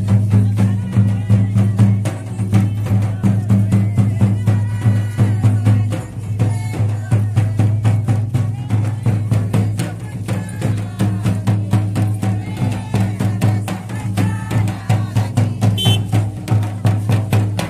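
Traditional folk music led by fast, even drumbeats over a steady low hum.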